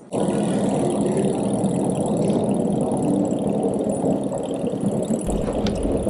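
Loud, steady mechanical running noise of a vehicle or machinery, with a faint high whine above it; it starts abruptly, a deeper rumble joins about five seconds in, and a few clicks come near the end.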